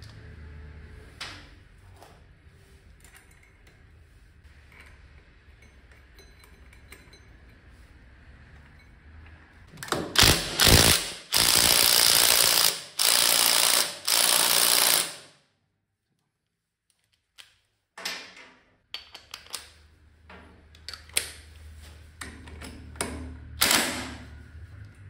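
Pneumatic shop air tool, fired as two short loud bursts about ten seconds in and then three blasts of about a second each. Before and after them, quiet clicks and knocks of metal parts and hand tools being handled.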